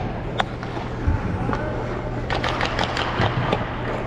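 Ice skate blades gliding and scraping on rink ice, with a run of short, sharp scrapes about halfway through, over a murmur of other people's voices and a steady low hum.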